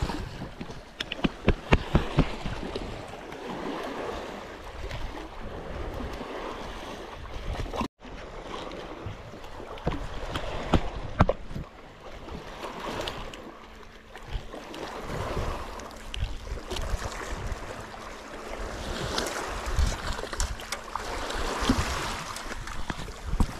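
Small sea waves lapping and splashing against a rocky concrete shoreline, with wind buffeting the microphone. Scattered sharp clicks and knocks, a cluster of them about one to two seconds in and again about ten seconds in.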